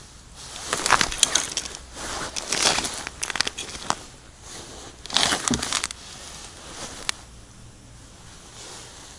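Crinkling rustle of a padded winter suit and crunching on snowy ice as a kneeling ice angler shifts and reaches, in irregular bursts for about six seconds, loudest about one second and five seconds in, then quieter.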